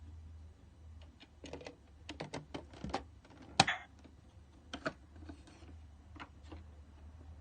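Irregular light plastic clicks and taps from a toy washing machine being handled, the loudest about three and a half seconds in, over a low steady hum.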